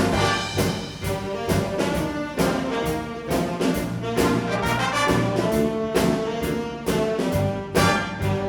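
Student jazz big band playing, the trumpets and trombones carrying the tune over regular drum hits.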